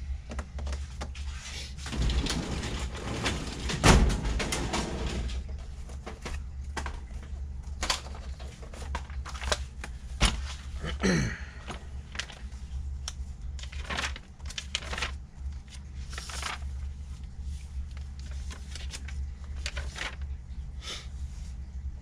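Clicks, knocks and rustling of parts and tools being handled on a workbench, with the loudest clatter about four seconds in and a short squeak near the middle, over a steady low hum.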